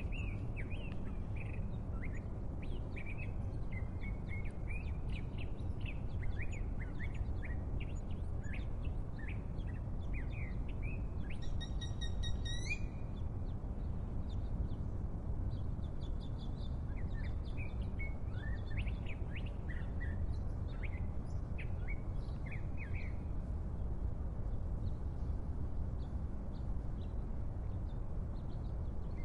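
Small birds chirping in many short, quick calls over a steady low background hum, with one longer, clearer note about twelve seconds in. The chirping thins out over the last few seconds.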